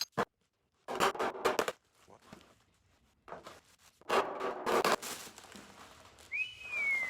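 Handling noise on a sheet-metal car quarter panel: two sharp knocks at the start, then two bursts of scraping and rubbing as hands and tools work over the panel to find the dent. Near the end comes a short high tone that rises then falls.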